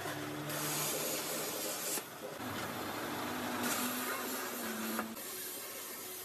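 CNC plasma cutter's torch cutting steel sheet: a harsh hiss from the arc and air, loudest in two stretches that drop off suddenly about two and five seconds in, over a low hum from the machine.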